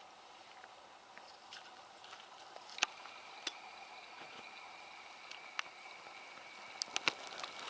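Quiet outdoor field ambience with a faint, steady high-pitched tone and a handful of short, sharp clicks or snaps. The loudest click comes about three seconds in, and a quick cluster of them comes near the end.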